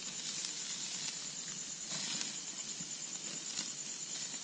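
Night-time outdoor ambience: a steady high-pitched insect chorus, evenly pulsing, with a few faint ticks and crackles.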